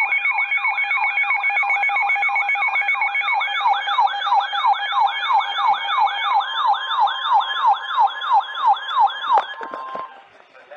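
Electronic alert siren of a weather alert radio sounding for an incoming tornado warning: a fast, even yelp of falling sweeps, about three a second, that stops near the end.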